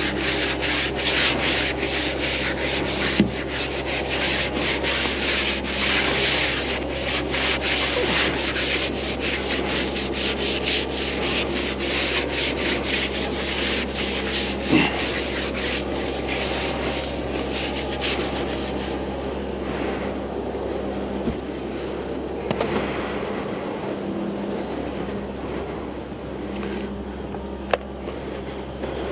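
A stiff-bristled wash brush scrubbing a soapy steel tractor wheel rim and tyre in quick back-and-forth strokes, stopping about two-thirds of the way through, after which only a few scattered knocks are heard. A steady low hum runs underneath.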